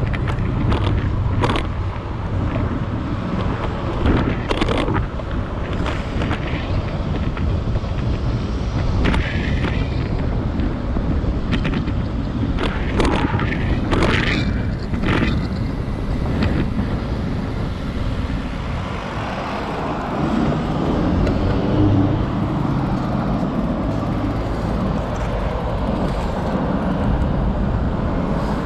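Street ambience recorded from a moving bicycle: a steady rumble of road and wind noise on the microphone with traffic around, broken by a few sharp clicks and rattles. A vehicle sound swells after about two-thirds of the way in.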